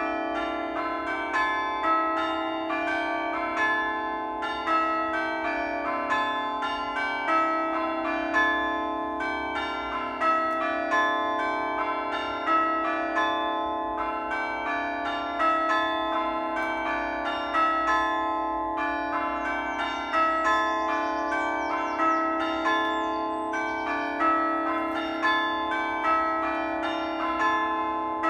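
A ring of church bells pealing continuously in change-ringing fashion: the bells strike one after another, several strikes a second, with an accented stroke about every one and a quarter seconds. Their tones ring on and overlap.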